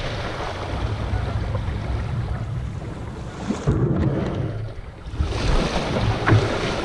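Water sloshing and lapping against a canoe hull, with wind on the microphone, as the canoe coasts after the mud motor is throttled back.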